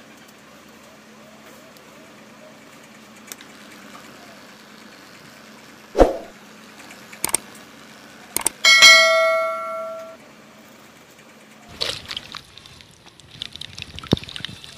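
A click and then a bell-like ding from a subscribe-button animation, ringing and fading over about a second and a half about two-thirds of the way in. Before it come a few sharp clicks over a faint steady hum, and near the end a rougher, crackling noise.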